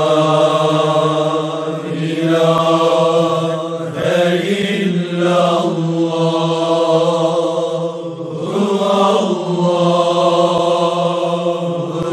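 Wordless chanting in long held notes, in phrases a few seconds long with short breaks between them.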